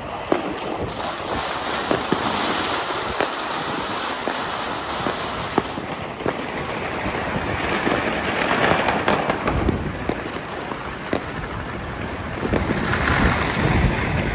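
Many fireworks and firecrackers going off across a town at once: a continuous crackle of overlapping pops and bangs, with sharper single bangs standing out now and then.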